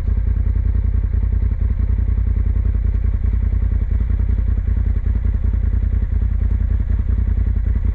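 Polaris side-by-side UTV's engine running steadily as it drives along a gravel trail, a loud, even rumble heard from the cab.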